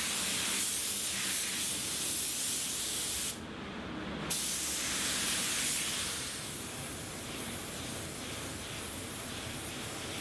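Gravity-feed compressed-air paint spray gun hissing steadily as it sprays clear coat onto a car bumper. The hiss drops out for about a second around three seconds in, then carries on somewhat quieter.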